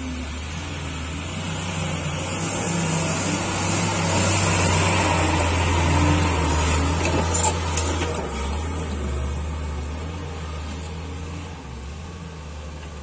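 Diesel engine of a tipper lorry loaded with soil, driving through a muddy field: a steady low drone that grows louder as it passes close by, then fades as it pulls away.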